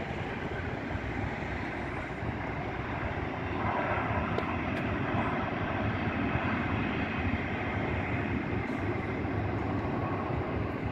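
Distant jet airliner engines on the runway, a steady rushing that swells a little about three and a half seconds in.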